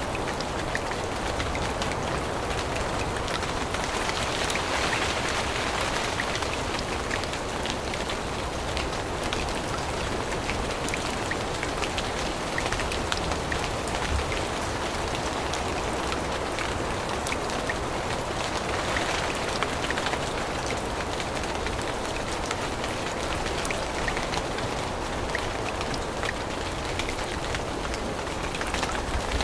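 Steady rain falling on forest foliage, with many single drops ticking close by. It swells louder twice, about four seconds in and again near twenty seconds.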